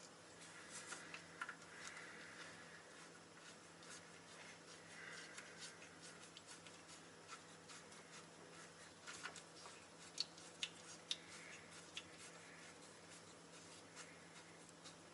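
Near silence with scattered faint clicks and light taps, a few sharper ones in the second half, as of parts and tools being handled.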